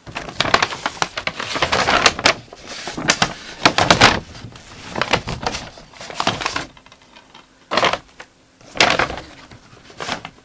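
Close handling noise: irregular rustling and crackling of a boxed film package and a fabric blanket being moved against the camera's microphone. It runs in dense bursts for about seven seconds, then comes as three short separate bursts near the end.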